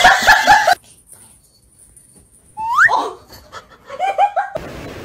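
People laughing in short repeated bursts, stopping abruptly less than a second in; after a quiet gap a short rising squeal, then another brief run of laughter near the end.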